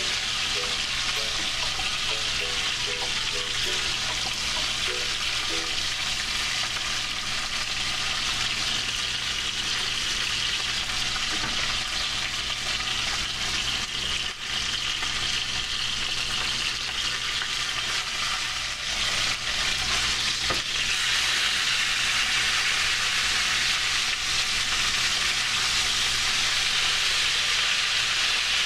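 Flounder fillets frying in hot oil in a skillet, a steady sizzle that grows a little louder about two-thirds of the way through.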